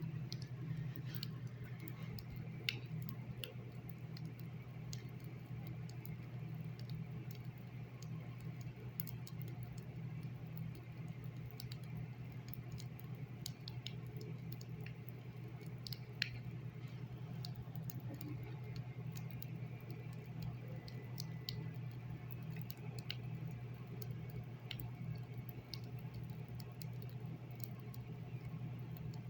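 Faint, irregular clicks and ticks, a few every second or two, over a steady low hum.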